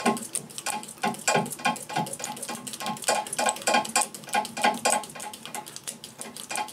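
Plastic bowstring serving tool clicking and rattling as it is spun round and round the string, winding serving thread onto it: a steady run of quick clicks, a few a second.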